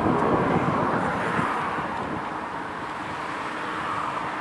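Jet airliner passing, its engine noise a steady rush with a low rumble, loudest about the first second and slowly fading away.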